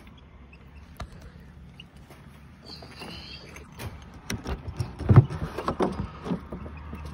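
Plastic fishing cooler being handled and opened to take a freshly caught catfish: a run of thumps and knocks starting about four seconds in, the loudest about a second later.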